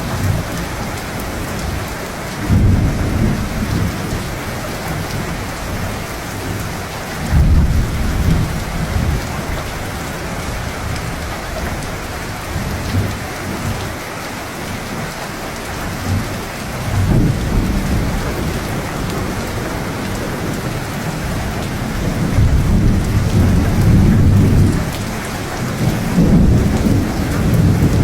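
Steady rain falling, with low rolling thunder that swells up and dies away about five times.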